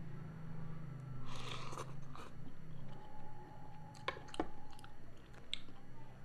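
Close-miked eating sounds: a mouthful of spicy seafood cup noodles being chewed, with a few sharp clicks around four seconds in as a metal spoon is set down on a wooden tray.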